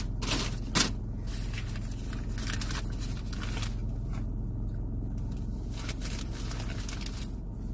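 Steady low hum of a car engine idling inside the cabin, with rustling and a sharp click about a second in as things are handled on the seat.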